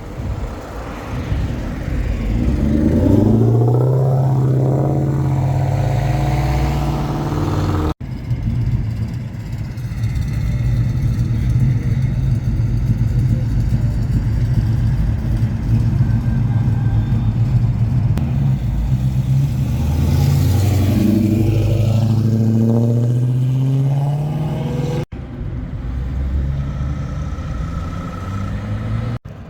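Loud car exhaust with engines revving: the pitch climbs about two seconds in and again around twenty seconds in, over a steady low engine drone, with a few abrupt cuts between clips.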